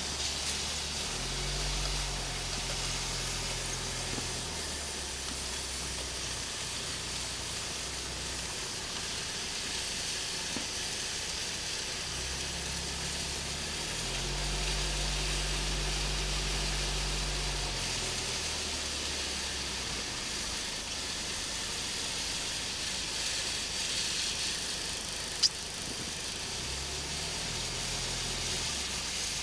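Steady outdoor hiss with three stretches of low rumble, near the start, in the middle and near the end, and one sharp click about 25 seconds in.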